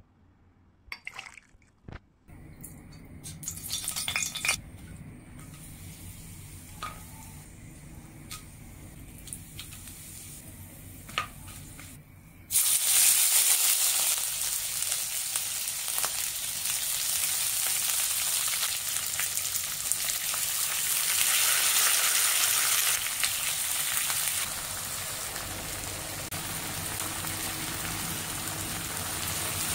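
Food frying in hot oil in a wok: ginger garlic paste, then onions and spices, sizzling with a steady hiss that starts suddenly about twelve seconds in. Before it come a few light clinks and a low steady hum.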